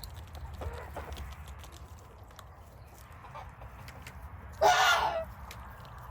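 A flock of chickens clucking softly, with one loud call of about half a second from a chicken about two-thirds of the way through.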